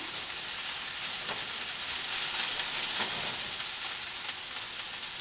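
Chopped vegetables and green onion sizzling steadily in a frying pan, stirred with a wooden spoon that scrapes the pan now and then.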